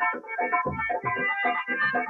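Live stage music: an electronic keyboard playing a melody over a steady, even beat.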